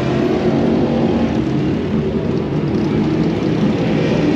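Loud, steady drone of engines running, even and continuous with no clear revving up or down.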